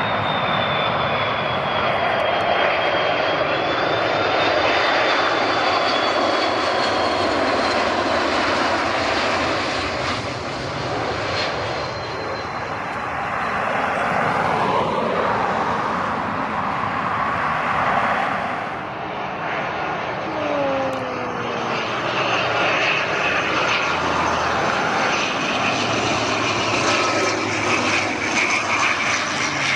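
Airbus A330 twin-engine jet on final approach and touching down: a loud, steady engine rumble with a high whine that slowly falls in pitch. Near two-thirds of the way through, the sound changes to an ATR-42 turboprop on approach.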